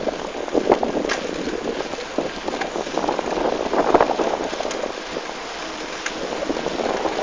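Wind buffeting the microphone and road noise from a mountain bike rolling along an asphalt street, with irregular crackling and rattling.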